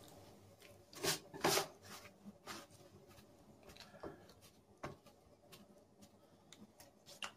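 Gloved hands rubbing and pressing chicken pieces into flour on a tray to coat them: soft, short rustling and brushing sounds, the loudest a pair about a second in, then a few fainter ones spread out.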